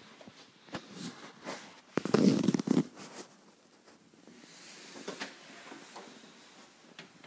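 Rustling and rubbing close to the microphone of a handheld phone, with scattered light clicks. About two seconds in comes a louder burst of rubbing and knocks lasting under a second, and a softer rustle follows around five seconds.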